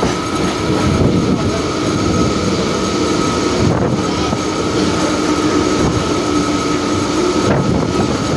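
Mumbai suburban local train running, heard from inside the carriage at its open doorway: a steady rumble of wheels on track with a faint steady whine running through it.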